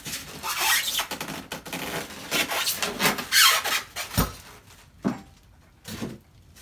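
White foam packing end caps rubbing and squeaking, with plastic wrap rustling, as a griddle is worked out of its packaging in irregular bursts. A dull thump about four seconds in, then two lighter knocks.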